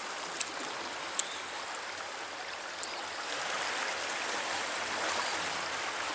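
Fast, swollen river current rushing steadily, with two brief light clicks near the start.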